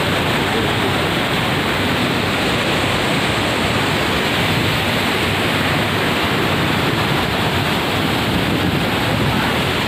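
Torrent of muddy floodwater rushing steadily over a washed-out road, a loud, continuous rush of water.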